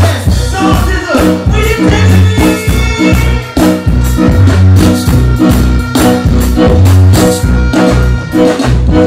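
Loud music with a heavy, repeating bass line and a steady beat.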